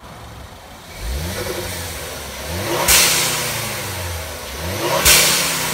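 Ford Explorer's turbocharged 2.0 L EcoBoost four-cylinder revved in three throttle blips while parked, the engine note rising each time. The second and third blips are each followed by a loud, short whoosh as the turbo blow-off valve vents boost on throttle lift.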